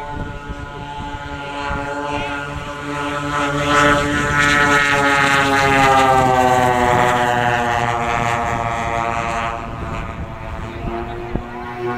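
Twin propeller engines of a giant-scale radio-controlled Bristol Beaufighter model in a flyby. The drone grows louder toward the middle, then fades as the pitch drops on the way past.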